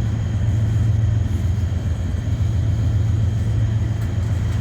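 Freight train moving, a steady low rumble.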